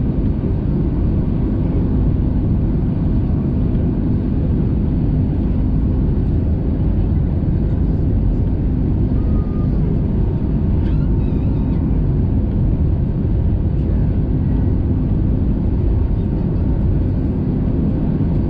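Steady loud rumble of engine and airflow noise inside the cabin of an Airbus A320neo airliner, with a faint steady hum.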